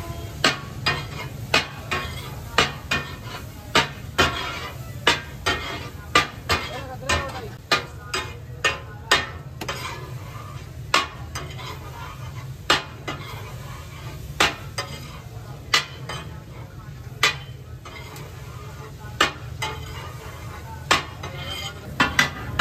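Metal spatulas clacking and scraping on a large flat tawa griddle as fish katakat is stirred and chopped, in irregular sharp metallic strikes about once or twice a second. Underneath are a sizzle and a steady low hum.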